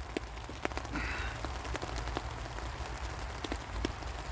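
Steady rain falling on a tarpaulin overhead, with many single drops landing on it as sharp ticks.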